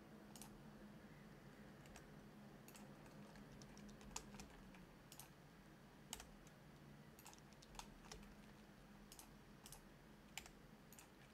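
Faint, scattered clicks of computer keyboard keys and mouse buttons, irregular and roughly one a second, over a low steady hum.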